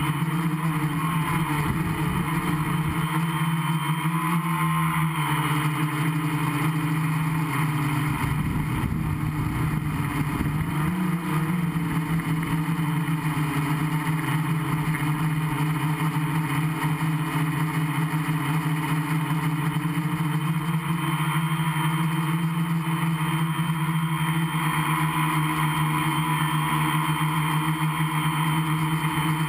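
Gaui 500X quadcopter's electric motors and propellers buzzing steadily in flight, heard from the camera mounted on the craft, with the pitch shifting a little now and then. A low wind rumble on the microphone is there for roughly the first ten seconds.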